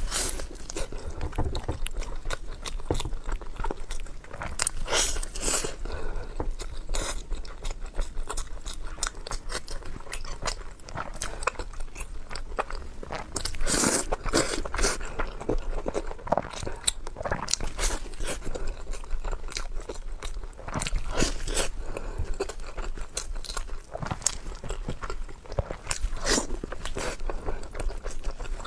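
Close-miked chewing and biting of crispy pan-fried buns (shuijianbao), with irregular crunches that come thick and fast throughout.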